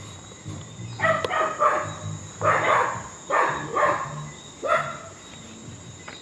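A dog barking, a run of about seven sharp barks between about one and five seconds in, some in quick pairs.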